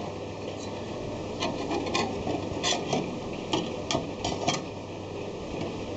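Pliers working a piece of sheet-metal car panel held in a vise: irregular small metal clicks and scrapes as the metal is bent into shape.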